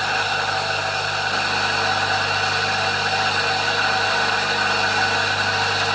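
Homemade rice flour grinder running steadily, its washing-machine motor spinning a cutting blade: a steady hum under a dense, even noise.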